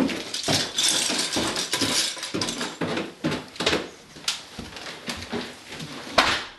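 Footsteps with clothes rustling: irregular thumps about two or three a second. A sharp, louder knock comes near the end.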